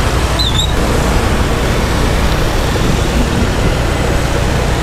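Heavy rain falling steadily, with road traffic rumbling underneath. A brief high squeak about half a second in.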